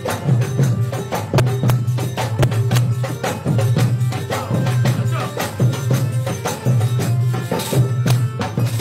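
Live instrumental folk devotional music: a harmonium sounding chords over a steady low drone, a soprano saxophone carrying the melody, and hand drums keeping a steady beat.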